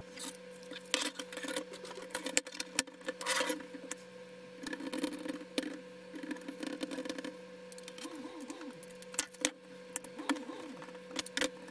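Scattered light clicks, taps and clinks of metal rails and plastic parts being handled as a hot-swap drive bay rack is put back together, over a faint steady hum.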